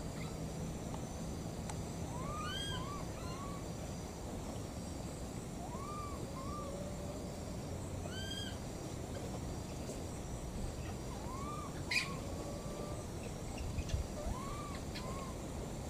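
Baby macaque giving short rising-and-falling coo calls, mostly in pairs, repeated every few seconds: an infant calling for its mother. A couple of sharp clicks come near the end.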